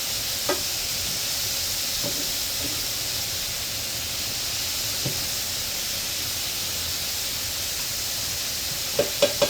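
Steady sizzle of vegetables frying in hot oil, with a few single knocks and then a quick run of five or six utensil taps against the pan near the end.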